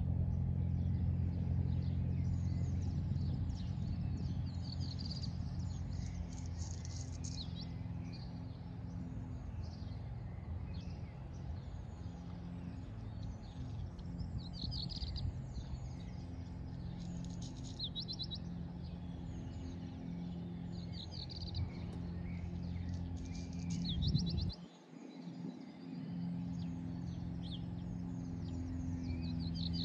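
Small birds chirping and trilling again and again over a steady low engine hum; the hum cuts out for a second or so near the end, then comes back.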